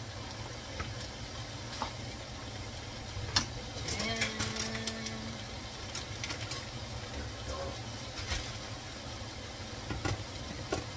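Wooden spoon stirring and scraping ground beef in a frying pan, then a few sharp clicks and knocks, over a steady low hum.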